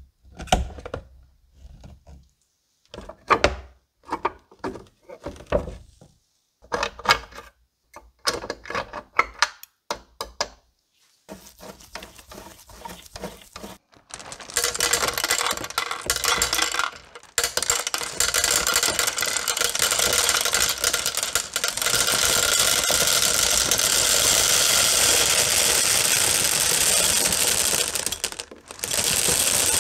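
A plastic bag crinkling and rustling in short bursts, then, from about halfway, a continuous rattle of many gumballs pouring from the bag into a clear plastic container, with two short breaks.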